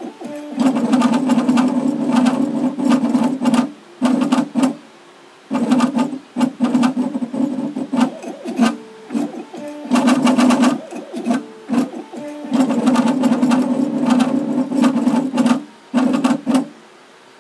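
Engraving machine with a diamond drag tip cutting script lettering into a pewter tankard: its motors buzz in stop-start runs of a few seconds, with fine scratchy ticking, pausing briefly about four seconds in and again near the end.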